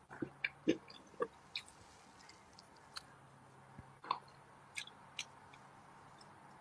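A small gold fork digging into a frosted chocolate cupcake: short clicks and soft squelches, bunched in the first second and a half, then a few scattered ones.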